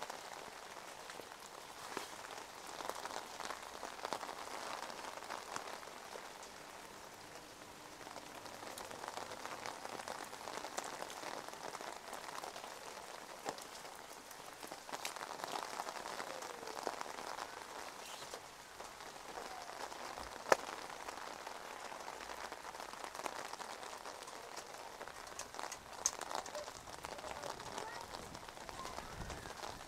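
Steady rain pattering on an open umbrella overhead and on wet pavement, full of small drop ticks. One sharp tick stands out about two-thirds of the way through.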